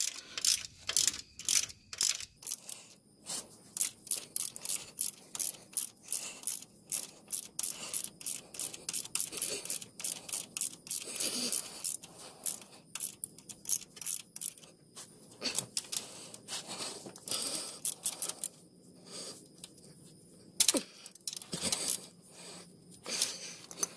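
Hand socket ratchet clicking in quick runs of strokes as bolts on a rear motor mount are tightened, with a short pause near the end.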